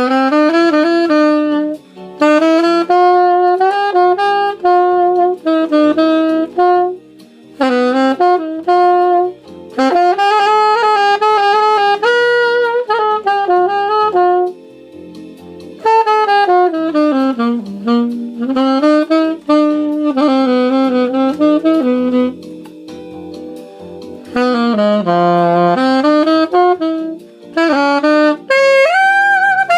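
1930 Martin Typewriter alto saxophone, gold-plated, playing a tune in phrases, with short breaks between them.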